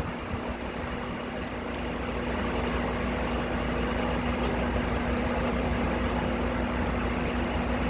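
An engine idling steadily with a constant hum, getting slightly louder about two seconds in.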